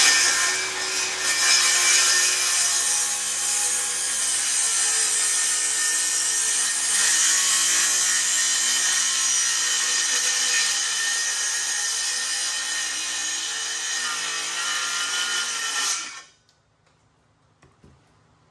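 Circular saw ripping lengthwise through a live-edge wooden slab, the motor running steadily under load with the hiss of the blade in the wood. The cut ends and the saw stops about 16 seconds in.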